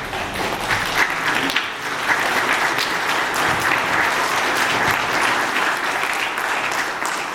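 Congregation applauding: many people clapping together in a dense, steady patter that fills out about two seconds in.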